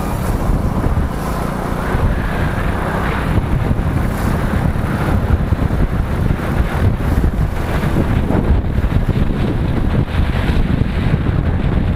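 Riding noise on a moving motorcycle: wind rushing and buffeting over the microphone, with the vehicle and road traffic running underneath.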